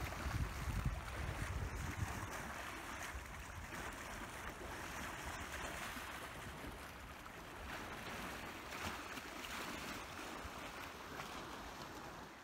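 Small sea waves washing and splashing against the rocks of a harbour seawall, a steady hiss of water, with wind buffeting the microphone for the first two seconds.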